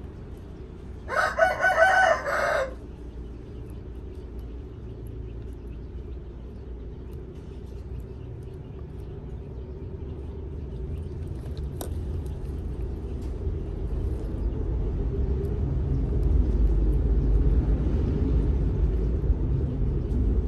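A rooster crows once, a second and a half long, about a second in. A low rumble builds through the second half.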